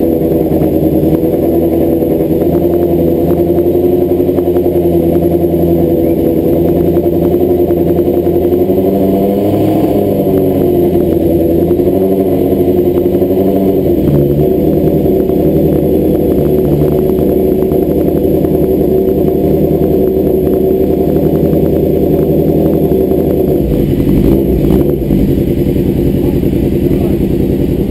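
An engine running continuously, its pitch drifting slowly up and down with the revs.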